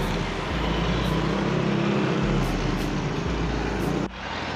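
Engine and road noise of street traffic, heard from a vehicle moving through it, with a steady low hum. About four seconds in, the sound drops off abruptly and continues as quieter street noise.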